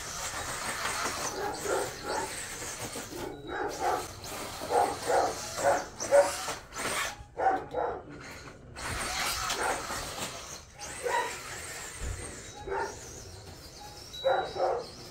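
A dog barking repeatedly in short bursts, over the intermittent high hiss of a small brushless electric RC truck driving through long grass.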